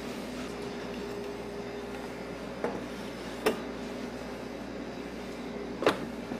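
Steady hum of kitchen equipment with two low tones in it. Over it come three sharp knocks of kitchen tools on a steel worktable, the first about two and a half seconds in, the next soon after, and the loudest near the end, as the pastry is rolled and the tart pan handled.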